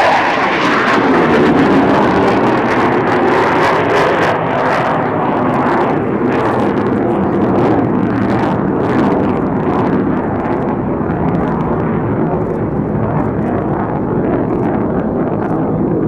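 Loud, rough, crackling jet noise from an F/A-18 Hornet's twin General Electric F404 turbofans as the fighter flies overhead. It is loudest in the first few seconds and eases off a little toward the end.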